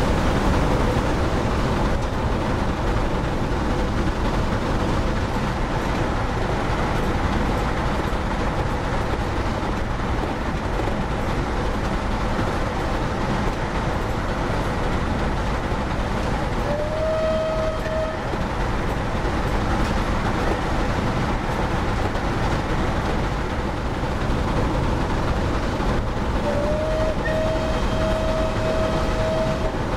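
Model Bulleid Pacific steam locomotive running with realistic sound: a steady running noise of the engine and its wheels on the track. A steam whistle rises briefly to a held note just past halfway through, and blows again for longer near the end.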